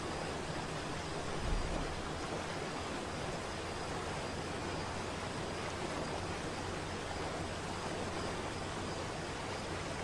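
Waterfall: a steady rush of falling water, with a brief low rumble about a second and a half in.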